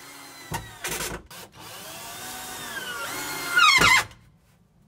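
Red cordless drill driving a screw into a pine slat. It starts with a couple of short trigger blips, then runs as a steady motor whine that slowly drops in pitch. It ends in its loudest burst, with the pitch falling, and stops about four seconds in.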